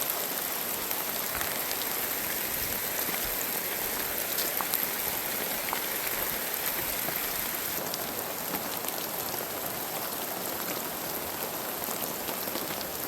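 Heavy rain falling in a steady downpour, with a dense patter of individual drops ticking throughout.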